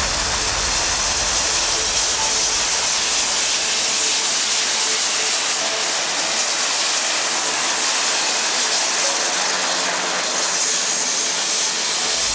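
Aircraft engines running, a loud steady rush of noise with no pauses. The deep low end fades out partway through.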